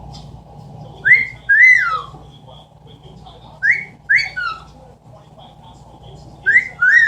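Amazon parrot giving a wolf whistle three times, each a short rising note followed by a longer note that rises and then falls.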